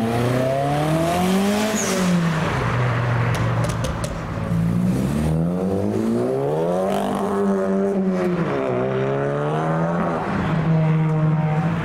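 Cars accelerating away one after another: a Nissan Pulsar GTI-R pulls off first, then a Honda Civic Type R. Each engine note climbs in pitch and falls back several times as the gears change.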